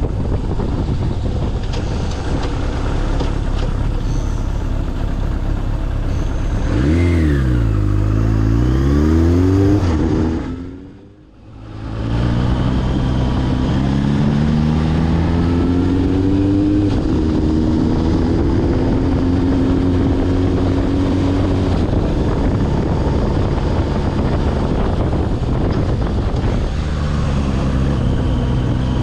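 Suzuki GSX1100S Katana's air-cooled inline-four engine running under way, its revs falling and climbing through the gears. The sound fades out briefly about eleven seconds in, then the engine pulls up through the revs again.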